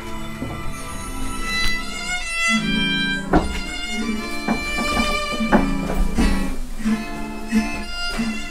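Instrumental music: a fiddle melody over plucked guitar, with a lively run of short notes.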